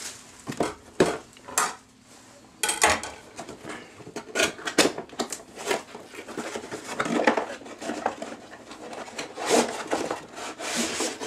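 Cardboard router box being opened and its inner cardboard tray slid out, with the cardboard rubbing and scraping and many light knocks against a glass tabletop. There is a brief lull about two seconds in.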